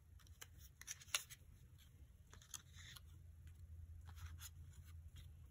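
Faint rustling and light clicks of die-cut cardstock ephemera pieces being flipped through by hand, over a low steady hum.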